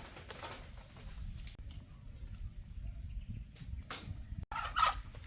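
Steady high-pitched chorus of insects buzzing without a break, over a low rumble; the sound cuts out for an instant about four and a half seconds in.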